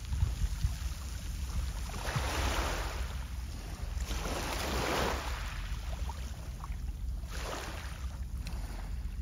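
Wind rumbling on the microphone, with small waves washing against the shore in three swells of splashing, about every two and a half seconds.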